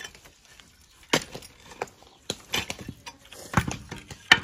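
Pickaxe knocking into an old mud-and-brick cooking stove as it is broken up, with chunks of brick and dried clay clattering. There is an uneven series of sharp knocks, with the loudest near the end.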